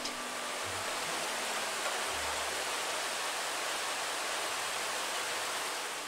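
Rain falling steadily on tree foliage: an even hiss with no bird calls in it.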